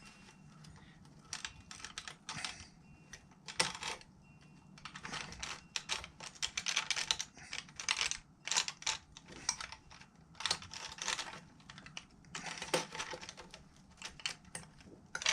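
Irregular runs of small clicks and scrapes as a blade works along a plastic 3D print, trying to cut through it.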